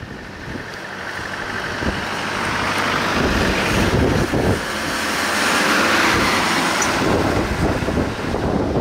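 British Army Land Rover Defender utility vehicles with turbodiesel engines driving past one after another. Their engines and tyres grow louder over the first six seconds or so as they approach, then ease off slightly.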